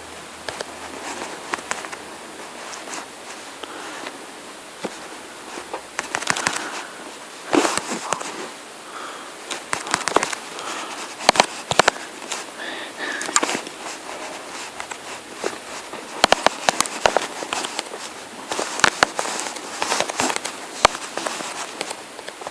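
Irregular sharp clicks and crackles in uneven clusters over a steady hiss.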